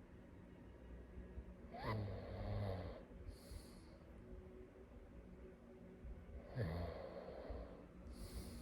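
A sleeping person snoring: two snores about five seconds apart, each sliding down in pitch into a low rasp, and each followed about a second later by a short breathy exhale.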